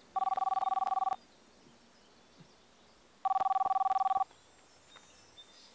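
Mobile phone ringing: two rings about a second long and two seconds apart, each a rapid two-tone electronic trill in the style of an old telephone bell.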